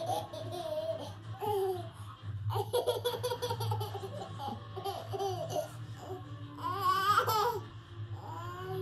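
Baby laughing in repeated short bursts of giggles with some babbling between, a louder burst of laughter about seven seconds in.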